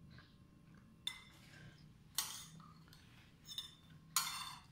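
Metal cutlery clinking against a ceramic plate while cutting up food, four ringing clinks about a second apart, the second and fourth the loudest.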